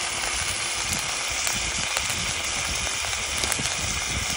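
Whole roast turkey sizzling in its juices in a hot cast-iron Dutch oven: a steady hiss with scattered small crackles.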